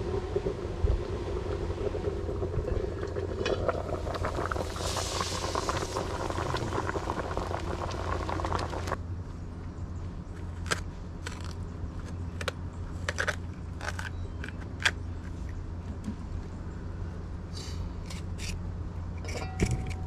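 Wood fire burning under a lidded aluminium pot, with a crackling, hissing noise over a steady low rumble. After about nine seconds it gives way to a knife slicing a green sweet pepper by hand, a string of sharp clicks and snaps as the blade cuts through.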